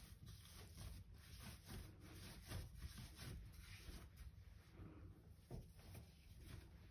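Faint, irregular rubbing and soft pats of hands folding and shaping bread dough against a granite countertop.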